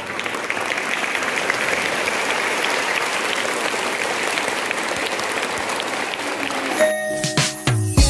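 A large crowd of schoolchildren applauding, a steady crackle of many hands clapping. Near the end it cuts off abruptly and music with sharp beats starts.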